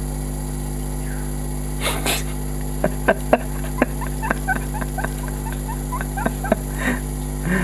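Man giggling quietly in short, rapid bursts from about three seconds in, after a breathy snort about two seconds in, over a steady electrical hum.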